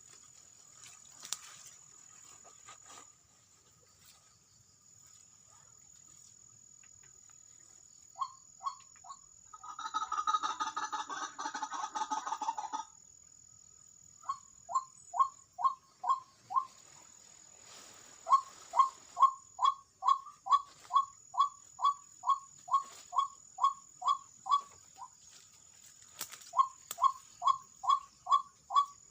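White-breasted waterhen (ruak-ruak) calling: a long run of short, falling notes at about two a second, with a denser, louder burst of calling about ten seconds in. A steady high whine runs underneath.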